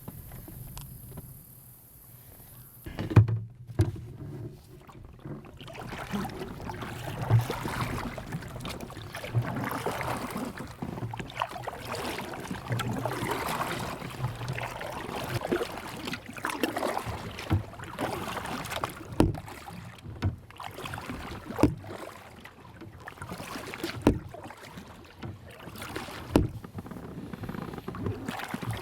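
Kayak being paddled: paddle strokes swishing and splashing in the water, with a few sharp knocks along the way.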